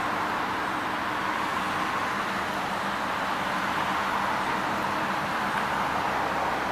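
A 19 hp Kawasaki FX600V V-twin engine on a walk-behind mower running steadily, with an even hum and no change in speed.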